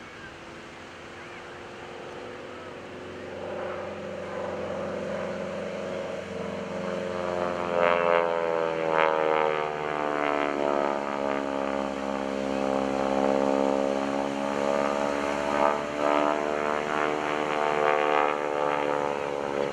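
North American SNJ-5 Texan's nine-cylinder Pratt & Whitney R-1340 radial engine and propeller running during an aerobatic routine. It grows louder over the first several seconds, then its pitch sweeps up and down as the plane manoeuvres.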